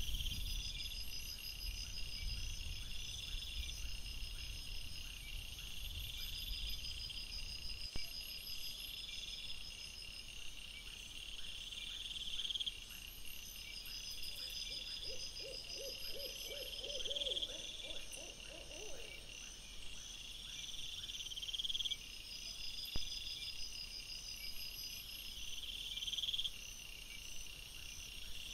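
Crickets and other night insects chirping steadily in repeating pulses. Around the middle, a low wavering trill of an animal call lasts a few seconds.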